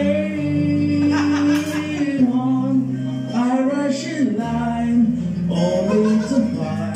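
Karaoke song playing loudly over speakers: a man sings the melody in long held notes over the backing track.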